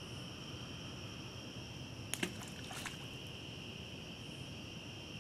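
Crickets chirring in a steady, high, even drone, with a short rattle of clicks about two seconds in from a hand-line survival fishing kit being cast.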